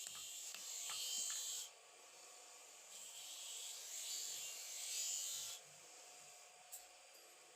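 Rust being scrubbed off a metal knife part, a scratchy abrasive rubbing in two bouts of a few seconds each, with a quieter pause between them.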